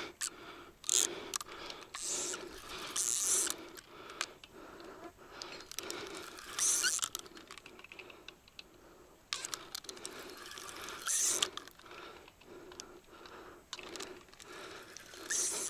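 Fishing reel being worked in uneven spells, its gears and clicking mechanism rattling, with several short, louder hissing bursts. A hooked wild carp has taken the line into a snag on the riverbed.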